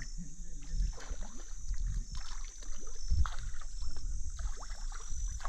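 Small boat on the water: irregular knocks and low thumps against the hull with water splashing, as of paddling or moving about in a canoe, the heaviest thump about three seconds in.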